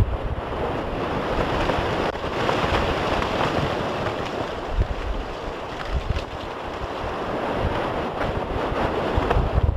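A steady, surf-like rushing roar from the Piton de la Fournaise eruption's lava fountain, with wind buffeting the microphone in uneven low gusts.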